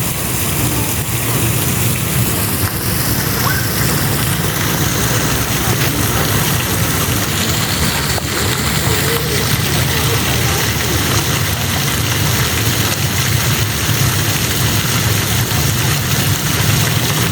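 A steady shower of water falling and pattering on surfaces, a constant rain-like hiss.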